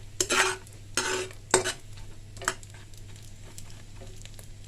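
A spoon stirring and scraping in a pan of cashews and almonds frying in ghee and butter, with a light sizzle. There are several quick scrapes in the first two and a half seconds, then quieter frying.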